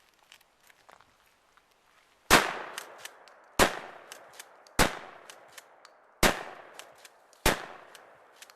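Five 12-gauge shotgun blasts from a Remington 870 pump-action, about one every 1.3 seconds, starting a little over two seconds in. Each blast has a short decaying echo, and lighter clicks come between the shots.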